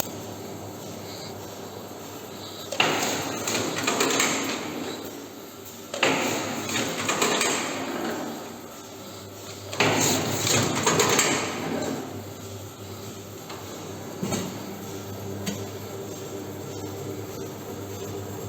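JJK carton bundling machine strapping bundles with polyethylene strap, three cycles about three seconds apart: each starts with a sharp clack and runs about two seconds of mechanical rattle as the strap is pulled and knotted. A steady machine hum runs underneath.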